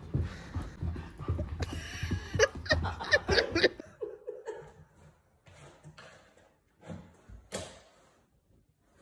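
People laughing over low rumbling thumps for the first few seconds. After a sudden cut it goes much quieter: light scratches and knocks of a kitten climbing a cardboard cat house, with one sharper knock near the end.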